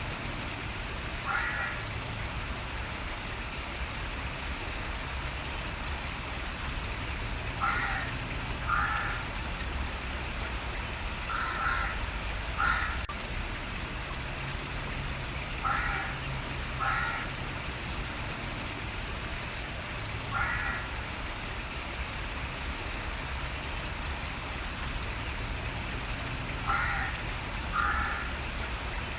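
Steady running water, with a bird giving short harsh calls, mostly in pairs, about ten times over the stretch.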